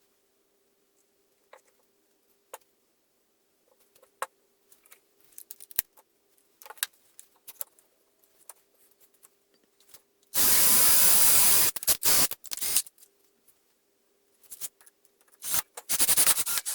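Cordless drill driver driving screws into plywood: one steady run of about a second and a half about ten seconds in, then short trigger bursts, and another cluster of short bursts near the end. Light clicks and knocks of handling come before it.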